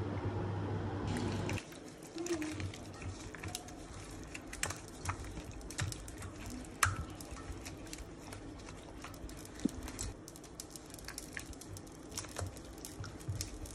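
Gloved hand squishing and turning raw chicken pieces in a sauce marinade in a stainless steel bowl: irregular wet squelches, drips and small clicks against the metal. A low steady hum cuts off about a second and a half in.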